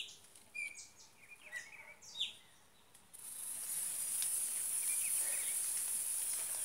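A small firework tube catches about three seconds in and burns with a steady hiss as it sprays sparks. Before it catches, a few short bird chirps.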